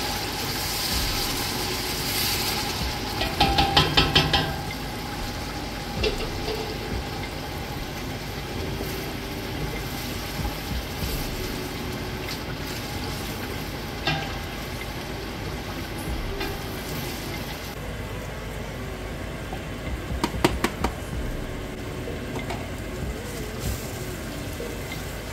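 Jollof rice base sizzling steadily as it fries in a pot. Two short runs of stirring, a spoon scraping the pot, come about three seconds in and again about twenty seconds in.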